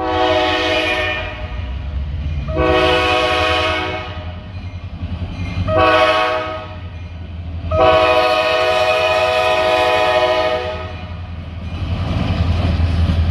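Freight locomotive horn blowing the grade-crossing signal: two long blasts, a short one, then a final long blast, each a chord of several steady tones. A low steady rumble runs underneath and carries on after the horn stops near the end.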